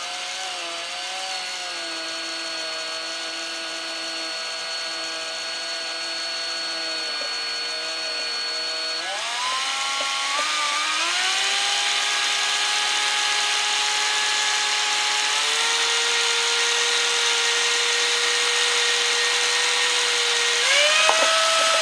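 Electric drill running continuously, spinning a tube spool on its bit to wind fishing twine onto it. The motor whine holds steady, then steps up in pitch and gets louder about nine seconds in, and rises a few more times as the speed is pushed up.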